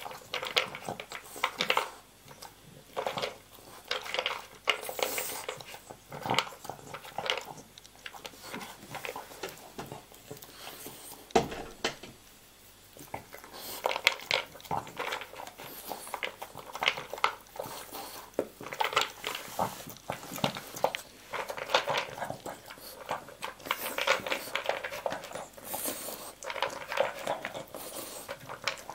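A French bulldog eating dry kibble from a plastic slow-feeder bowl: irregular clicks and rattles of pellets against the plastic as it works them out from between the bumps, with a short lull about twelve seconds in.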